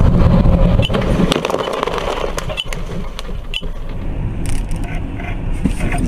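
Car driving, heard from inside the cabin through a dashcam: steady low road and engine rumble, with several sharp clicks or knocks in the first few seconds.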